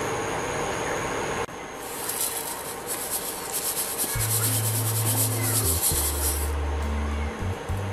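Dry roasted vermicelli crumbled by hand and sprinkled into a pan of milk: a dry, scratchy crackling rustle that starts about two seconds in and lasts about four seconds.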